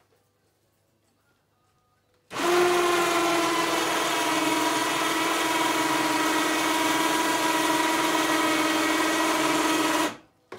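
A 12-volt four-wheeler winch motor hoists a wolf carcass onto a hanging scale. It starts a couple of seconds in with a steady whine that dips slightly in pitch at first, runs for about eight seconds, and cuts off suddenly near the end.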